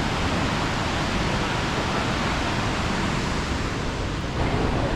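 Krka waterfalls rushing: a steady, even wash of falling water.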